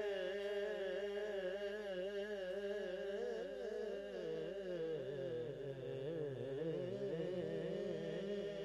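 Male naat singing: a long, wavering drawn-out melisma held without words, over a steady hummed drone. From about three seconds in, a second wavering line weaves around the first.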